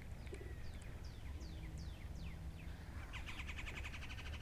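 Wild birds calling: a run of quick, high, downward-slurred whistled notes, then a rapid buzzy chatter starting about three seconds in.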